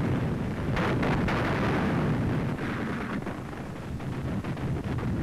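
Artillery fire and shell bursts on an old wartime newsreel soundtrack: a constant heavy rumble with a sharp bang just under a second in and a few smaller cracks after it.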